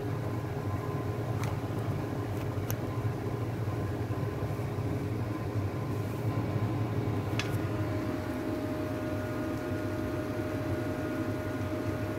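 A steady low machine hum with a faint higher whine, and a few faint clicks; one thin tone joins about two-thirds of the way in.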